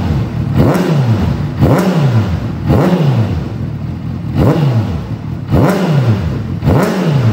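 Honda CBR600RR's inline-four engine revved in six quick throttle blips about a second apart, each rising sharply and dropping back to idle, through a freshly fitted aftermarket exhaust with a shortened silencer. The note is deep and full, turning sharper at the top of each rev.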